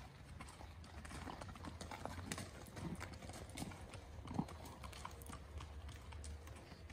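Hooves of two ridden horses clip-clopping on a gravel path: a run of light, uneven hoof falls, one a little louder about four and a half seconds in.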